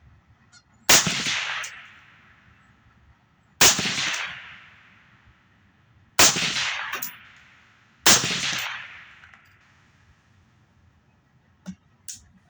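Four suppressed 5.56 rifle shots fired through a SilencerCo Chimera 300 suppressor, about two to three seconds apart, each a sharp crack followed by a short fading echo. Two faint clicks come near the end.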